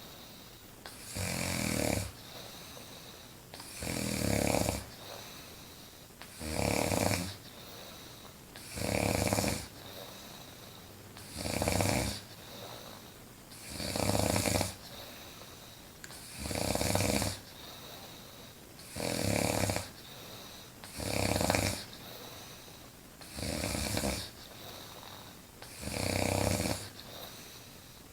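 A woman snoring loudly in deep sleep: one long snore on each breath, about every two and a half seconds, eleven in all.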